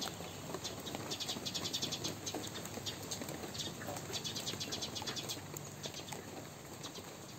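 Cat chewing a piece of food, in quick runs of small clicking bites, over a faint steady background hiss.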